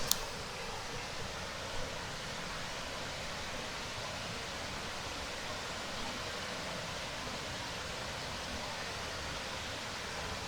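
Mountain stream rushing steadily over rocks, an even hiss of water, with one short sharp click right at the start.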